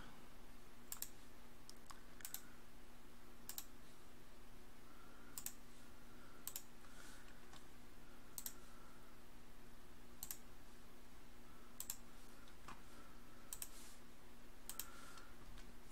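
Computer mouse clicking: about a dozen separate clicks, a second or two apart, over a faint steady low hum.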